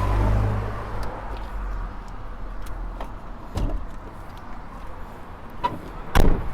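Passing traffic rumbling on a main road, with scattered clicks and a knock as the van is handled, then a loud thump near the end.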